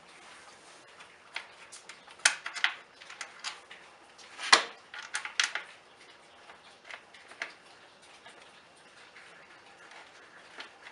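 Scattered light clicks and clinks of small parts being handled while a cooling fan is fitted to a car radiator. There is a cluster a little over two seconds in, the loudest knock about four and a half seconds in, and a few more clicks after that.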